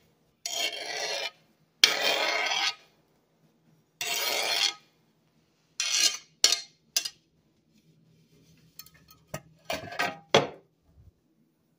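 Knife blade scraping across a glass cutting board, sweeping diced ham off it: three long scrapes, then several shorter ones and a few knocks near the end.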